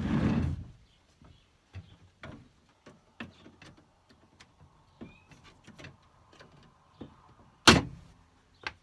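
Hands and tools working the lock arms and clips inside a van's sliding door: scattered light clicks and taps, a short rumbling scrape at the start, and one sharp loud knock near the end.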